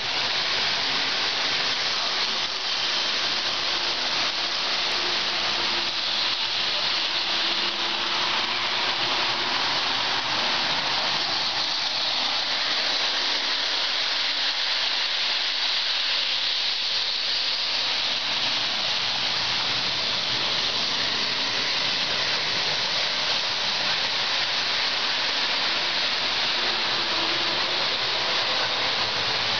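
Lionel O gauge model trains running on the layout's track: a steady hiss of wheels and motors, with a faint hum now and then.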